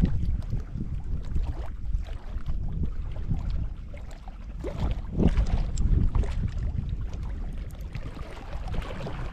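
Wind buffeting the microphone in uneven gusts, over small waves lapping at the rocky shore.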